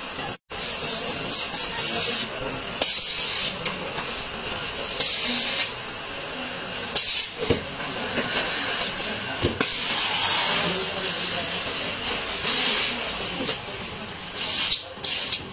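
Compressed air hissing on and off in short bursts of a second or so, one longer burst near the middle, typical of an air-powered spray or blow gun.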